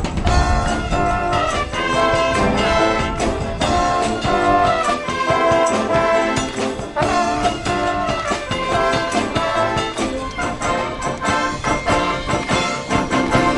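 High school marching band playing live, brass-led with trombones and trumpets over a steady drum beat.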